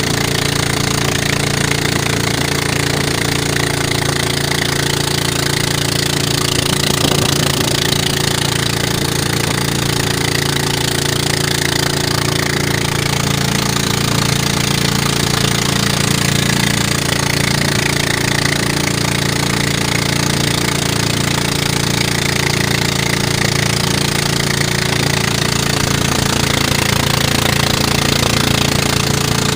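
Pump boat's engine running steadily at cruising speed, over the rush of wind and splashing water along the hull.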